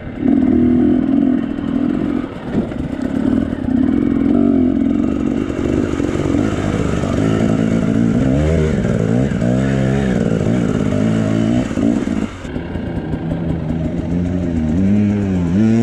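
Off-road enduro motorcycle engine running under load on a rough gravel track and through a river ford, the revs rising and falling repeatedly. Near the end the sound changes abruptly to another enduro bike revving as it fords the river.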